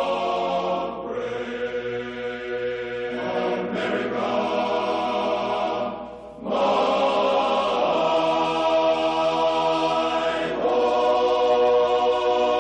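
Choral music: voices holding long, sustained chords that shift every few seconds, with a brief dip in level about six seconds in.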